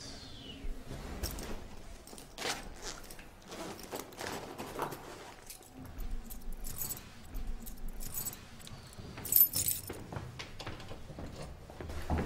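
Keys jangling, with scattered small clicks and rattles throughout and a sharper clatter about nine seconds in.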